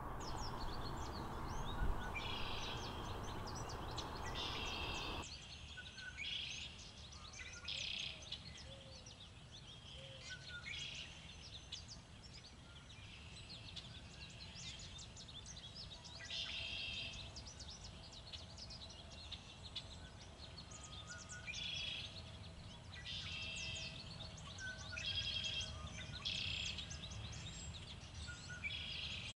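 Backyard songbirds singing, short trilled and chirped phrases repeating every second or two. A gust of wind rushes over the microphone for the first few seconds.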